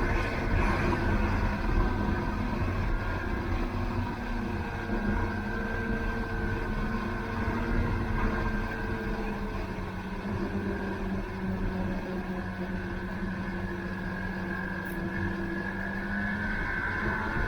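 Snowmobile engine running steadily under way, a droning tone that sags slightly in pitch midway and climbs again near the end, over a low rumble.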